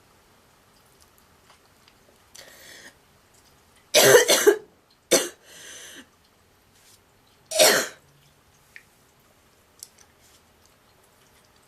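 A girl's honking, goose-like coughs: a harsh double cough about four seconds in, a short one a second later, and another about eight seconds in, with breaths drawn in between.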